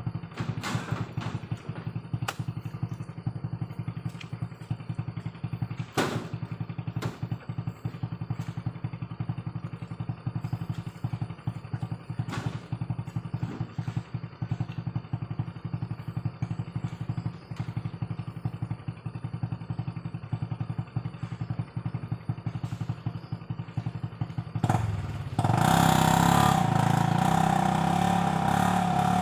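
Single-cylinder Honda Revo 110cc motorcycle engine of a homemade mini truck running steadily, with a few sharp knocks along the way. Near the end it revs up and gets much louder.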